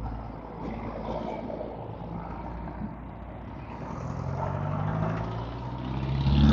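Vehicle engine running with road noise, growing louder over the last two seconds.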